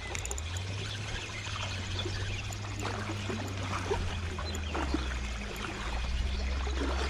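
Shallow river water flowing and gurgling around the wader, with many small splashes, over a low steady rumble.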